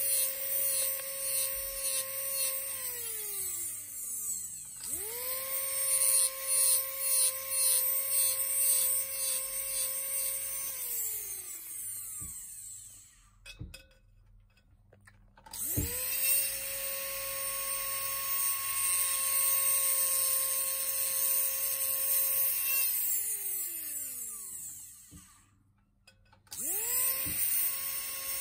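High-speed rotary handpiece with a small diamond cutting disc, whining at a steady high pitch, with a scratchy grinding as the disc cuts notches into the edge of a metal ring. Three times the motor is let off and coasts down with a falling whine, then spins back up; twice it stops fully for a moment of near silence before restarting.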